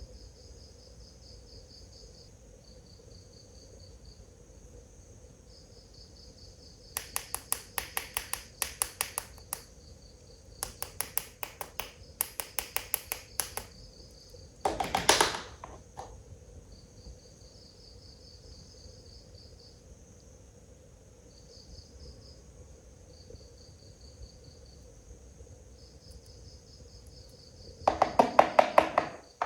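Crickets chirping in steady pulsed trills, broken by bursts of rapid, sharp clicking several times and one louder brief sound about halfway through.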